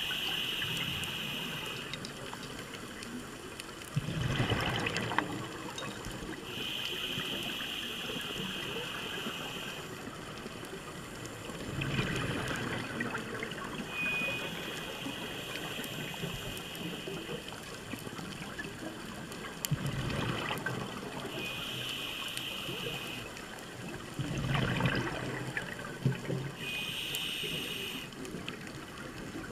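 Scuba diver breathing through a regulator underwater: a steady hissing inhale every six or seven seconds, each followed by a gurgling rush of exhaled bubbles.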